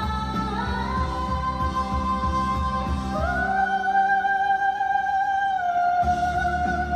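A woman sings long, high wordless held notes over a pop backing track. The notes step up in pitch twice and ease slightly down near the end. The backing's bass and beat drop away for a few seconds in the middle, then return.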